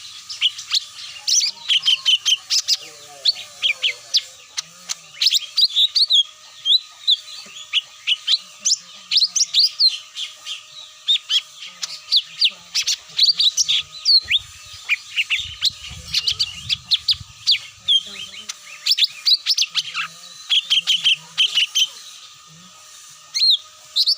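Cucak mini birds calling, used as a trapping lure: a dense, unbroken chatter of short, high chirps and quick whistled notes, several each second. A faint steady high tone runs underneath.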